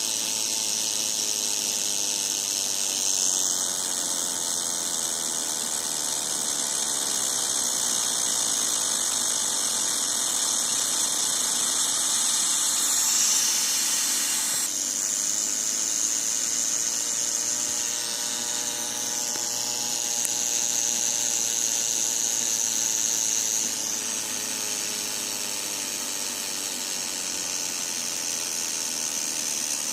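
Studio Projects VTB1 tube preamp putting out a harsh buzz and hiss, heard through headphones held to the microphone. The noise shifts in character every few seconds. It is a fault that sets in after the unit has run for 15–30 minutes and then goes on continuously.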